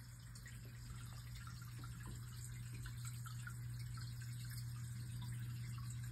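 Water dripping and trickling into the pool pond in small, scattered drops, over a steady low hum.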